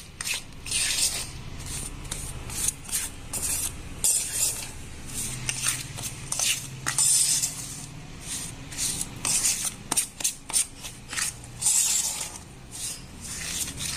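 Metal spoon stirring dry wheat flour and brown sugar in a stainless steel bowl, scraping against the bowl in many quick, irregular strokes.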